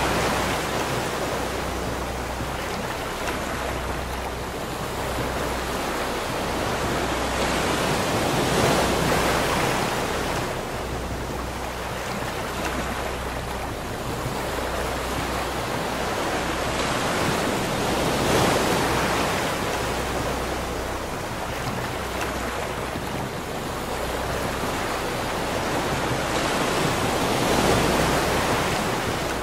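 Ocean surf breaking and washing up a sandy beach, swelling and fading about every nine to ten seconds.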